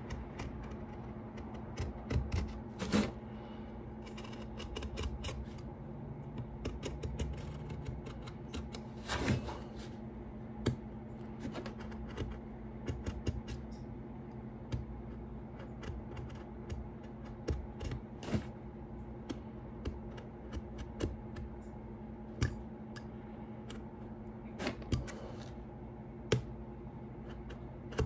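A pointed metal hand tool scratching and clicking against the wooden edge of a fiddle plate as it is worked along the outline, in short strokes at uneven intervals. A steady low hum continues underneath.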